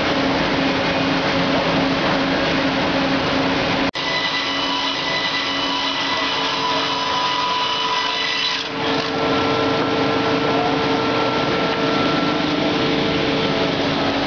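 FIMAKSAN Fİ.8 HTYA-6 hydraulic lumber edger running, a loud, steady machine noise with several held tones. It breaks off for an instant about four seconds in, and its tones shift near nine seconds in.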